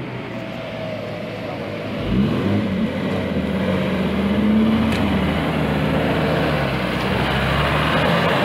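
Off-road 4x4 engine revving hard. The revs climb about two seconds in and hold high, easing slightly later on.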